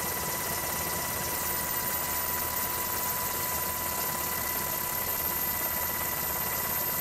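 Steady, unchanging engine noise heard inside the aircraft filming from above, with a constant high whine.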